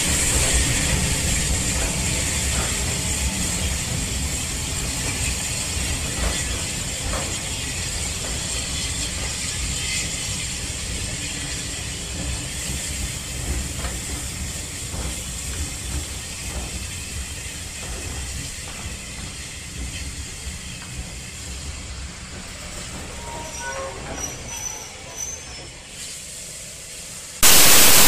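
Steam locomotive 34007 Wadebridge, an unrebuilt Bulleid West Country class pacific, and its coaches moving away, with a steady hiss of steam and wheels clicking over rail joints slowly fading. Near the end the sound changes abruptly to a much louder, steady hiss of steam blowing from the locomotive's cylinder drain cocks.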